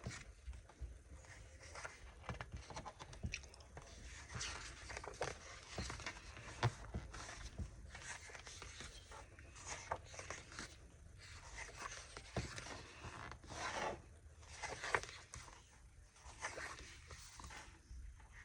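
Planner sticker sheets being handled and leafed through: irregular rustling and crinkling with small scrapes and clicks.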